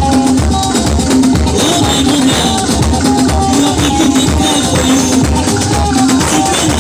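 Latin dance music with a steady bass beat about twice a second and a shaker, played loud through a picó, a large Colombian street sound system, during a sound test.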